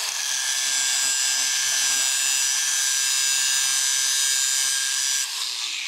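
Angle grinder running at full speed with its disc grinding on a cast iron caster fork, taking off metal for clearance where the wheel was rubbing. The steady whine is cut about five seconds in, and the motor spins down with a falling pitch.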